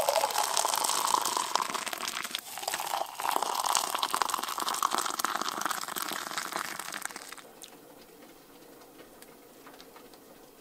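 Hot water being poured into a cup to make coffee, in two pours with a short break about two and a half seconds in, stopping about seven and a half seconds in.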